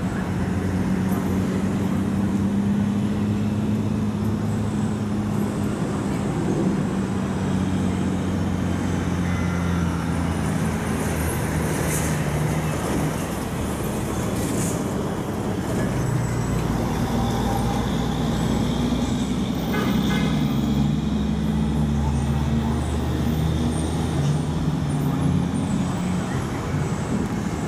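Street traffic: motor vehicle engines running and idling with a low hum that shifts in pitch, and a deeper rumble building about halfway through.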